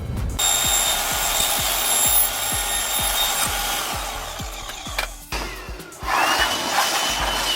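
A power tool cutting, run twice: a long run of about four seconds, then a shorter one after a brief pause, its motor pitch rising as it starts and falling as it stops.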